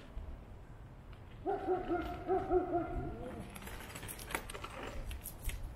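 The home-built reverse articulating trike's front wheel gives a pitched groaning squeal, a run of wavering notes for about two seconds that ends on a rising note. It comes as the rider leans, a fault he puts down to the right-side wheel's bearings, and the wheel grabs as it sounds. A couple of sharp clicks follow near the end.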